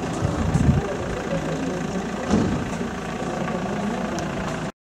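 A vehicle engine idling steadily; the sound cuts off suddenly near the end.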